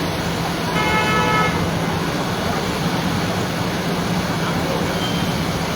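Road traffic noise with a steady engine drone, and one short vehicle horn toot about a second in.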